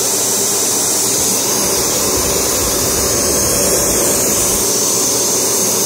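Panasonic MC-UG729 QuietForce upright vacuum cleaner running steadily: an even rush of air with a faint hum underneath.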